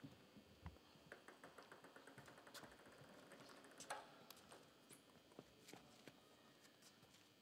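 Near silence with faint scattered taps and clicks of a table tennis ball, including a quick, even run of small ticks about a second in, like a ball bouncing to rest.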